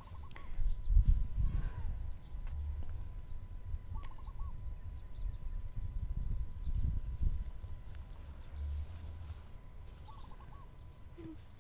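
Insects chirring steadily at a high pitch, with a short warbling bird call heard three times and a low, uneven rumble from the handheld camera moving.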